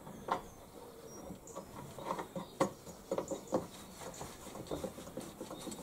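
Hands fitting a bolt through a lawnmower's handle: a few light clicks and taps with faint rubbing between them as the parts are handled.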